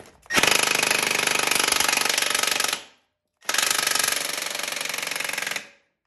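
Impact wrench with an inch-and-a-half socket hammering on a motorcycle's rear axle nut to loosen it, in two bursts of about two and a half seconds each with a short pause between them.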